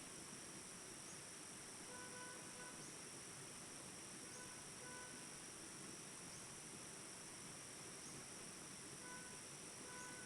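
Steady high-pitched chorus of insects, typical of crickets, shrilling without a break. Short pitched notes come in pairs every couple of seconds over it.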